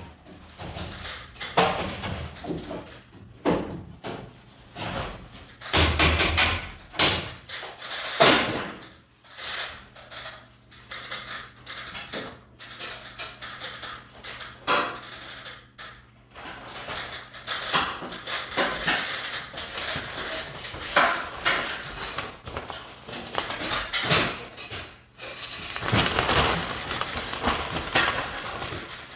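Irregular knocks, taps and clatter of hand work on a stripped wooden ceiling frame from a stepladder during renovation, with a faint steady low hum underneath.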